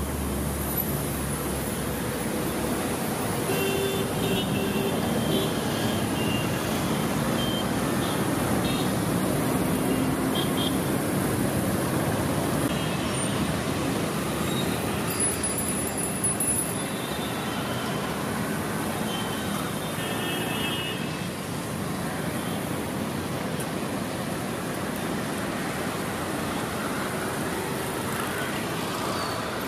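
Steady city road traffic on a rain-wet street: cars, buses, motorbikes and auto-rickshaws passing, their tyres hissing on the wet asphalt.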